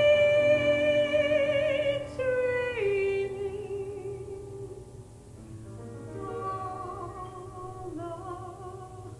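A woman singing long held notes with vibrato; the held note drops lower about two to three seconds in, and the singing grows softer in the second half.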